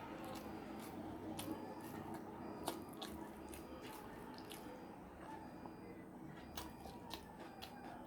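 A person chewing food, with irregular wet clicks and smacks from the mouth, a few each second, over a steady low background hum.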